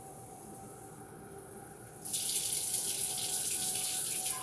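Kitchen sink tap turned on about halfway through, water running steadily into the sink for about two seconds.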